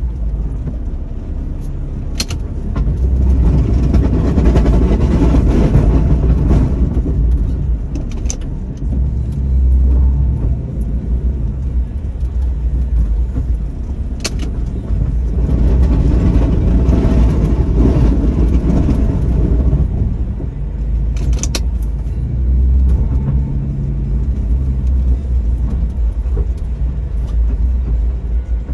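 2002 Jeep Liberty's engine running while it plows snow, swelling in loudness twice as it works under load, with four sharp clicks or knocks.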